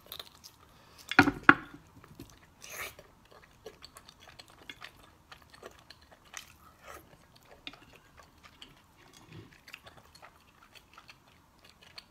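Close-miked eating sounds of fatty pork belly being bitten and chewed: a louder bite about a second in, then irregular wet chewing and lip-smacking.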